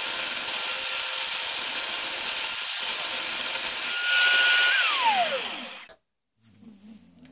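Electric drill driving a homemade mini wood lathe, running steadily while a hand-held scraper cuts a spinning piece of horn. About four seconds in it gets louder, then the drill motor winds down with a falling whine and stops about six seconds in, followed by a few faint handling knocks.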